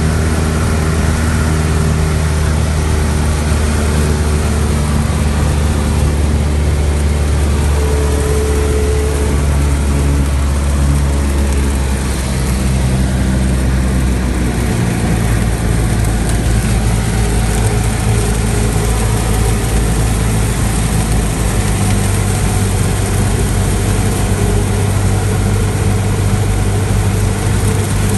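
Cessna 172's piston engine and propeller running steadily, heard from the cockpit, with an even hiss of heavy rain over it. The engine note changes about halfway through.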